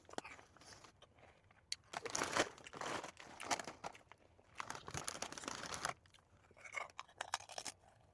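Crinkly plastic snack packaging being handled and crunched, in two longer bursts of rustling about two and five seconds in, with smaller crackles between.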